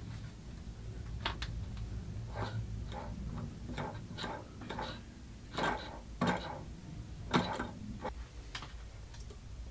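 Irregular light clicks and taps from a small hand-built solenoid engine being handled and its flywheel nudged by hand, with a low steady hum underneath. The engine does not run: its power leads are connected the wrong way round.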